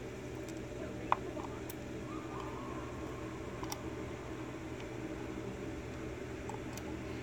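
A few sharp little clicks of steel tweezers and small lock pins being set into a wooden pin tray, the loudest about a second in, over a steady low background hum.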